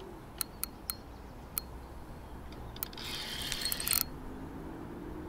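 A spinning reel ratcheting in one dense burst of about a second, three seconds in, with a few separate clicks before it, as a hooked carp pulls against the bent rod.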